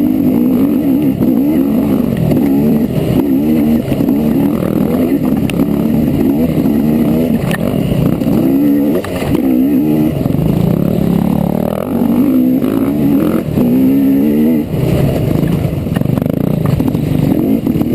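Trail bike engine revving up and down as the rider rides, its pitch rising and falling over and over, with a few sharp knocks along the way.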